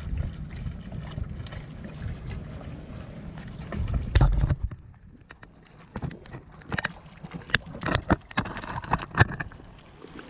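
Wind on the microphone and water washing against jetty rocks, with a loud low thump about four seconds in. Then a hooked bluefish (anchoa) is reeled to the surface and thrashes, giving a run of sharp splashes and clicks over the last few seconds.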